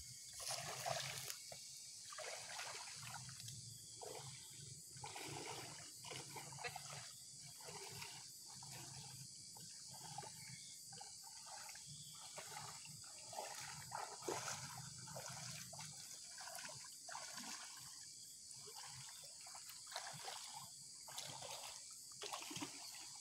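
Shallow muddy swamp water swishing and sloshing around the legs of people wading slowly through it, in irregular strokes about once a second, over a steady high-pitched hiss.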